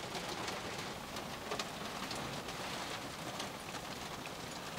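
Hail falling: a steady hiss of precipitation with many small, sharp ticks of pellets striking.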